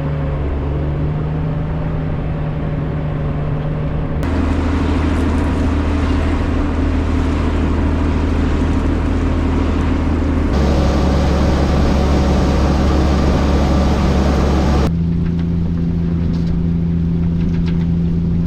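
Combine harvester running steadily while harvesting soybeans, a loud engine hum with the rush of the threshing machinery. The sound changes suddenly three times, as if heard from different spots on the machine.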